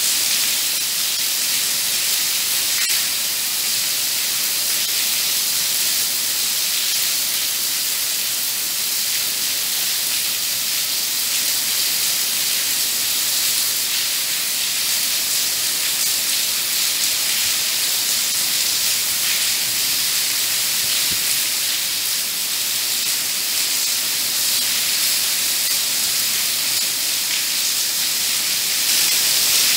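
Steady rain falling, a loud, even hiss that swells slightly near the end.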